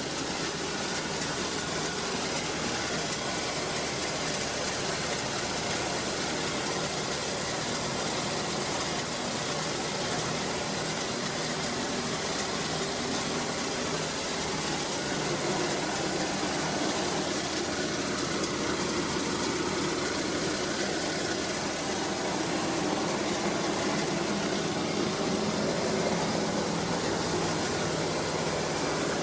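1947 Dodge's flathead straight-six engine idling steadily.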